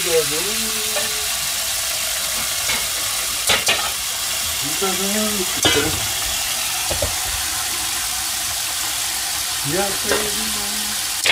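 Tap water running steadily into an aluminium saucepan in a stainless steel sink, filling it to the brim with a constant hiss.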